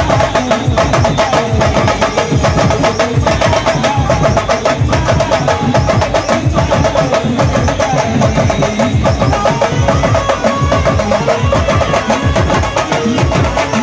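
Indian band-baja procession music: fast, loud drumming on large double-headed drums, with a wavering melody line held above the beat.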